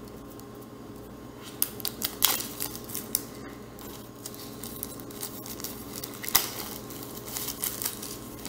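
Plastic shrink wrap on a pack of notebooks crinkling and tearing as it is pulled off by hand, an irregular run of sharp crackles starting about a second and a half in.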